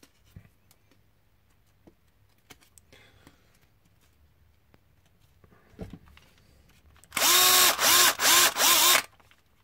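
Power drill bores down a raised plastic ring on an RC car's plastic battery tray, running in a few short bursts near the end, its whine sagging each time the bit bites. Before that, only faint handling clicks and taps on the plastic.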